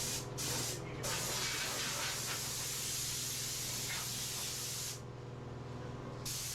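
Air blower blowing, a rushing hiss: short bursts, then a long steady blast that stops about five seconds in, with one more short burst near the end.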